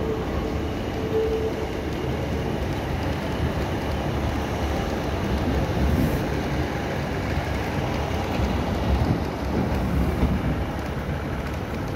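A ScotRail Class 156 diesel multiple unit running past, its Cummins underfloor diesel engines and wheels giving a steady low rumble. A thin steady whine sounds over it for about the first second and a half.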